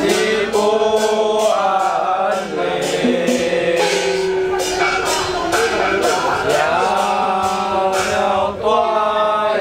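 Ritual chanting: long held, wavering sung lines over a steady beat of percussion strikes.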